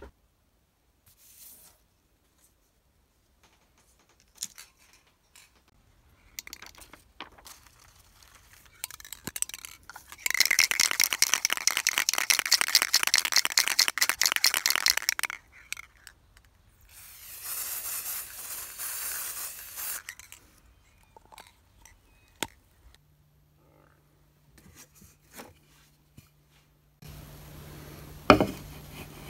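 Aerosol spray can spraying: a long hiss of about five seconds, then a shorter one of about three seconds. Before it come scattered clicks and light rattles. Near the end there is a low steady hum and one sharp knock.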